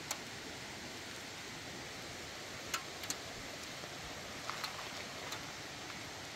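Light rain beginning to fall: a steady soft hiss, with a few single drops ticking sharply on nearby surfaces.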